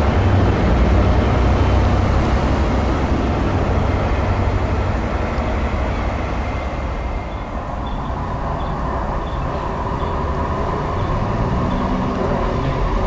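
Diesel engine of a Class 43 HST power car running as the train pulls away, its rumble fading. After about eight seconds a quieter rail rumble slowly builds as a diesel multiple unit approaches.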